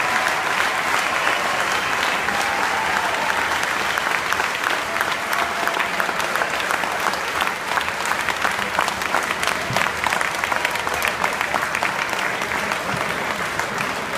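A large grandstand crowd applauding: dense, steady clapping from many hands that eases off slightly near the end.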